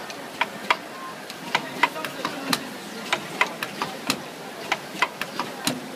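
Irregular sharp clicks and knocks, several a second, as plastic mascara bottles are set into the white holders on a rotary filling-and-capping machine's steel turntable.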